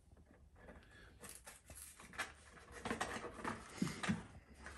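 Plastic packaging of hot dogs being handled and opened by hand: irregular crinkling and small clicks that start about a second in.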